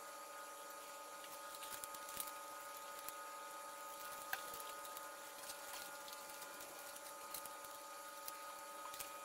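Faint handling noises, a few soft ticks and rustles, as thin LED light-strip wires are fitted onto an EPP foam model airplane, over a steady faint hum.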